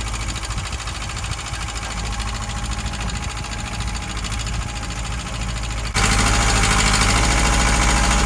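Tractor engine running steadily. About six seconds in, it abruptly becomes louder and harsher.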